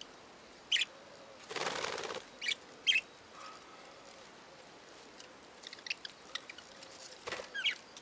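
Budgerigars giving a few short, high chirps, with a burst of wing flapping about one and a half seconds in and more chirps near the end.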